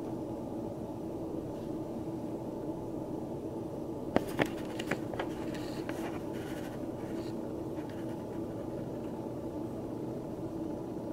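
Steady hum of an air conditioner running, with a few sharp clicks about four to five seconds in.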